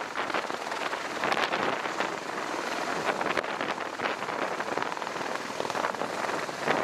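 MV-22 Osprey tiltrotor descending to land in helicopter mode, its rotors and engines making a steady, dense rushing noise with a rapid crackle running through it.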